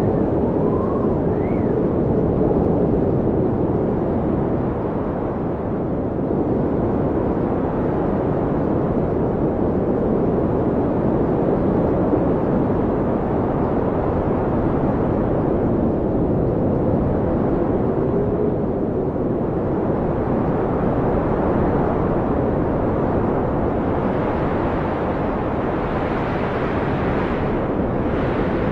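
Howling wind of a snowstorm: a steady, deep rushing roar, with faint whistling tones that rise and fall in pitch, briefly about a second in and again softly later.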